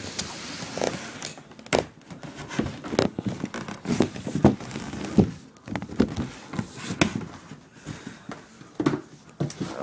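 A clear plastic sheet is slid out of a cardboard shoe box and handled: a rustling slide in the first second, then crinkling and many scattered taps and knocks.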